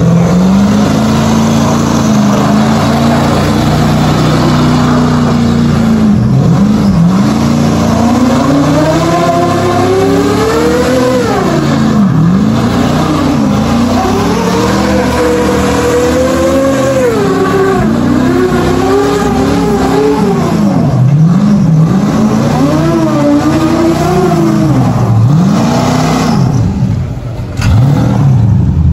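Jeep Cherokee XJ with a 6.0 stroker engine swap, revving hard while spinning donuts on wet concrete. The engine holds a high, steady pitch for the first few seconds, then its revs climb and drop again and again, with a short dip near the end.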